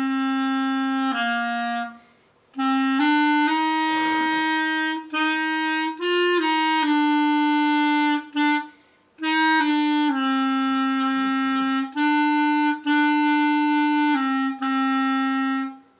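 A clarinet played solo by a young girl: a slow melody of long held notes. There are short breaks about two seconds and nine seconds in, and it stops just before the end.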